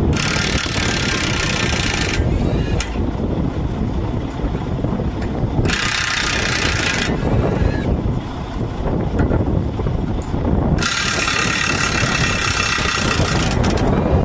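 Three bursts of an air impact wrench spinning truck lug nuts, the first and last about two to three seconds long and the middle one shorter. Underneath is a steady low rumble of an idling engine.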